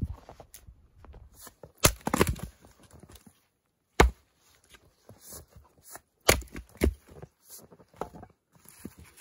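An axe splitting firewood on a stump chopping block: several sharp chops a few seconds apart, with smaller knocks between. The piece is twisted, spiral-grained wood that had to be struck at an angle to split.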